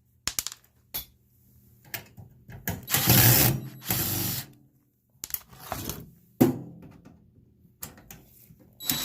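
Cordless drill-driver running in short bursts to back screws out of a microwave oven's sheet-metal casing, with scattered clicks and a sharp metal knock about six seconds in.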